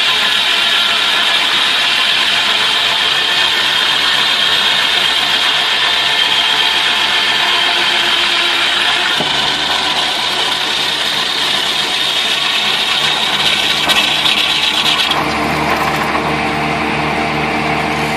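Sawmill machinery running with a saw cutting through wood, a steady loud grinding noise over an engine hum. The sound changes abruptly about nine seconds in and again about fifteen seconds in.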